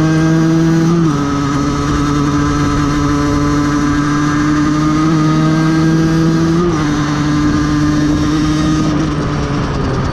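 Aprilia 50cc two-stroke moped engine running at a steady cruising speed. Its pitch eases down a little about a second in, rises briefly around five seconds, then eases off again near seven and nine seconds.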